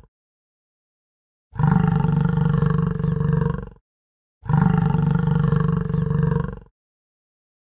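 Musk ox calling: two long, low, steady calls of about two seconds each, the first starting about a second and a half in and the second about a second after the first ends.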